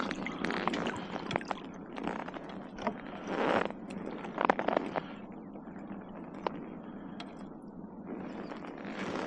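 Irregular scrapes and clicks of close handling noise, with a few louder scuffs about three and a half and four and a half seconds in.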